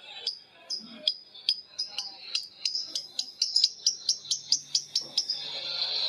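Lovebird giving its long 'ngekek' chattering call: a run of shrill, sharp chirps that speed up from about two a second to about five a second, running into a continuous buzzy chatter near the end.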